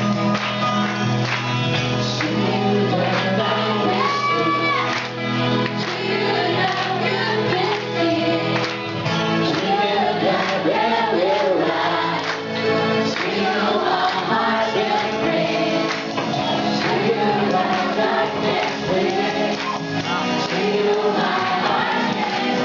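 Live worship band playing with a group singing along: guitars, a steady beat and many voices singing together, loud and continuous.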